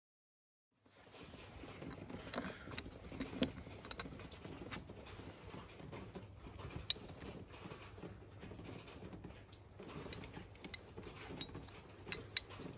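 Faint handling noise of a cut steel bracket being turned over in the hand, with scattered sharp clicks and taps, starting about a second in.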